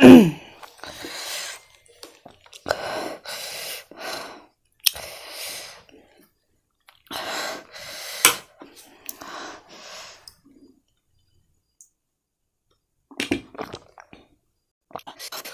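A person breathing hard through the burn of extremely spicy noodles: a series of sharp, noisy breaths about one every second or so, which stop after about ten seconds. A few faint clicks follow near the end.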